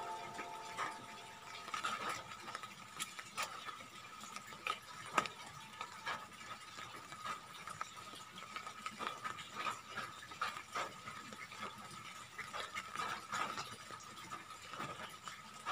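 Faint, irregular small clicks and rustles of hands working soil and seedlings into plastic grow bags, over a faint steady high hum.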